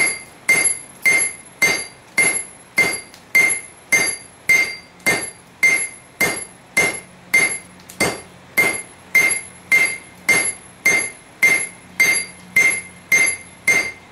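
Hammer blows on a hot stainless steel billet on an anvil, an even beat of close to two strikes a second, each with a short ringing tone. The smith is consolidating the billet of TIG-welded scrap stainless.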